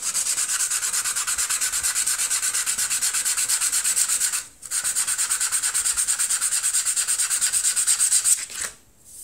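Sandpaper rubbed by hand over thin plywood in rapid back-and-forth strokes, pausing briefly a little before halfway and stopping near the end.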